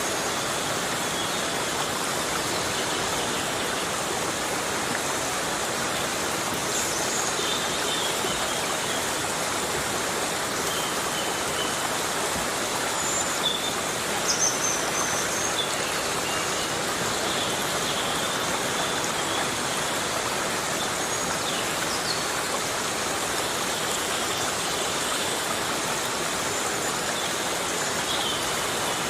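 Heavy rain falling steadily in a tropical rainforest, an even rushing hiss with a few brief high chirps over it.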